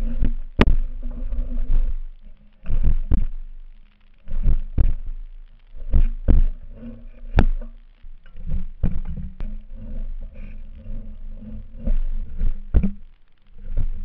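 A 20-inch Kris Holm KH20 trials unicycle hopping and landing on wooden pallets: its knobbly tyre hits the planks with repeated sharp thuds and knocks, often in quick pairs. Under them runs a low rumble, picked up by a camera mounted on the unicycle.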